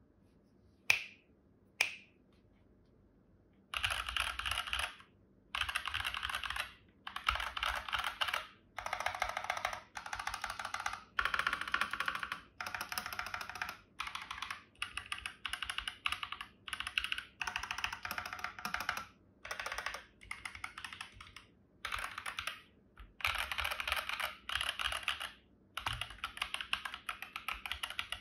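Fast typing on a mechanical keyboard with tactile switches, as a sound test. Two single key clicks come first, then from about four seconds in, bursts of rapid keystrokes a second or two long with short pauses between them.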